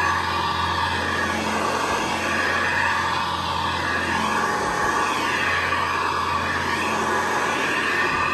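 Hoover Convertible Model 704 upright vacuum cleaner running steadily over carpet, its motor giving an even hum and whir; it has a freshly fitted belt.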